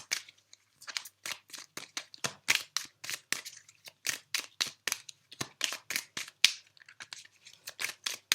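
Tarot cards being shuffled by hand: a fast, irregular run of crisp snaps and slaps, several a second.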